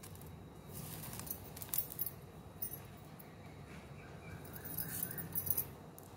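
Stiff plastic basket-weaving wires clicking and rattling against each other as hands knot and pull the strands tight: light scattered ticks, with a cluster about five seconds in.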